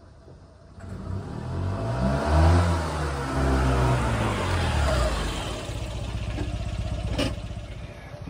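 1985 Honda Acty mini truck's small two-cylinder engine revving as the truck drives up, its pitch rising and then falling and settling as it slows. A single sharp click about seven seconds in.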